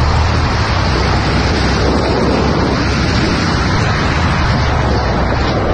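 Steady, loud noise of a moving car: road and wind noise with a low rumble, picked up by a dashcam microphone.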